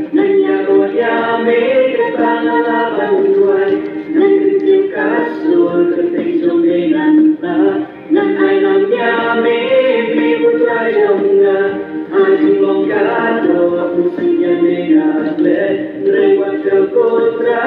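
A group of voices singing a dance song, with a brief break about eight seconds in.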